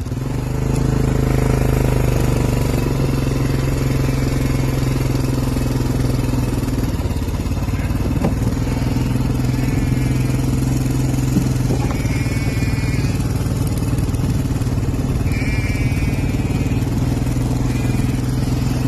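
Quad bike engine running steadily, its pitch shifting a little a few times as the engine speed changes. A few short, wavering high calls are heard over it.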